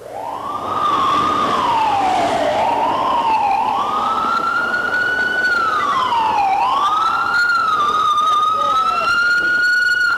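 Ambulance siren wailing, its pitch sweeping slowly up and down several times and then holding nearly steady near the end. It starts abruptly and loud.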